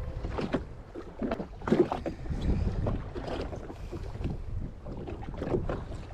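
Water splashing and slapping against the hull of a Sea-Doo Fish Pro personal watercraft at sea, in irregular bursts, with wind buffeting the microphone.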